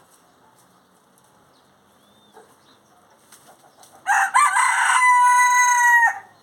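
A rooster crowing once, about four seconds in: a two-second crow, rough at the start, then a long held note that cuts off.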